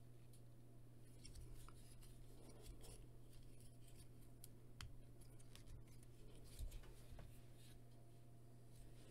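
Faint scattered clicks and rubbing of plastic parts as the joints of a small plastic Transformers Cyberverse Dinobot Slug figure are turned and pressed by hand, over a low steady hum.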